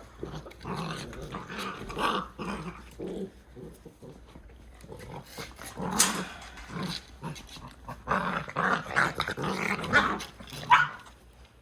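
Welsh Springer Spaniel puppies play-growling at each other in irregular bursts, louder in the second half.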